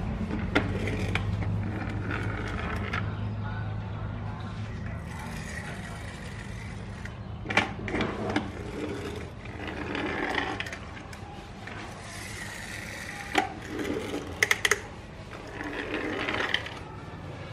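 Small plastic toy cars clicking, knocking and rolling briefly on a wooden ledge. Sharp clicks come in a cluster of three near the end, and short rattling rolls come and go every few seconds.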